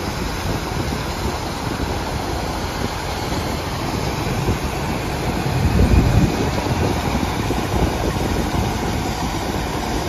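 Steady mechanical din of a corn-grinding setup running: augers feeding whole corn into a Haybuster grinder and a conveyor throwing the cracked corn onto a pile, with a tractor engine running. A gust of wind hits the microphone about six seconds in.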